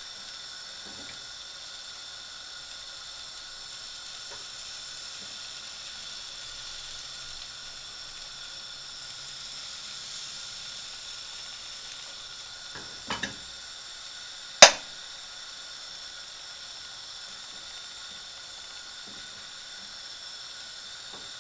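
Eggs sizzling in a frying pan over a lit gas burner: a steady hiss. A couple of small knocks come about two-thirds of the way through, followed shortly by a single sharp clink of a utensil.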